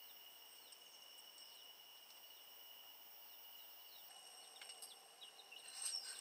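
Quiet outdoor ambience: a steady high insect trill with a few faint bird chirps, and a few short clicks near the end.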